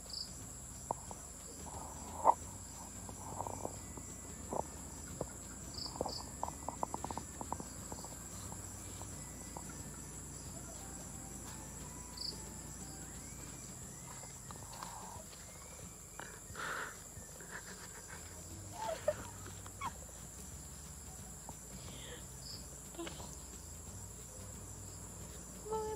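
Crickets trilling steadily in a high, unbroken tone, with scattered faint clicks and knocks.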